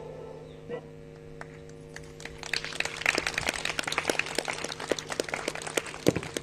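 Audience clapping that starts about two and a half seconds in and carries on as dense, irregular applause; before it there is only a faint steady hum.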